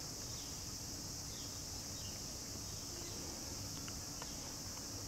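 Insects calling in the garden, a steady high-pitched drone that holds at one level, with a few faint short chirps over it.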